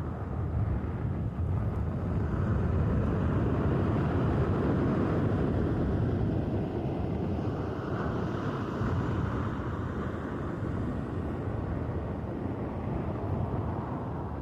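Sea surf: waves breaking and washing up on the shore, a steady rushing noise that swells a couple of seconds in and again with a wave about eight seconds in.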